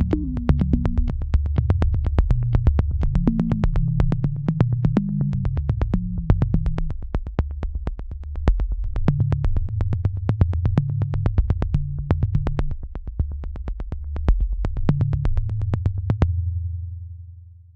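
Electronic background music: a synthesizer track with a fast, even ticking beat over a moving bass line, fading out near the end.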